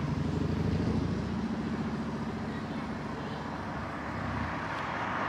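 A motor vehicle's engine running steadily, with road noise swelling near the end as traffic passes.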